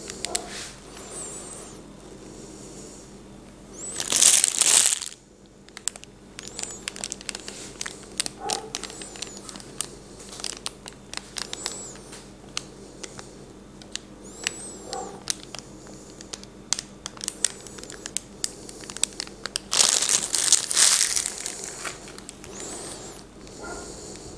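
Plastic piping bag crinkling as it is squeezed to pipe melted chocolate, with many small clicks and two louder rustling spells, one about four seconds in and one about twenty seconds in.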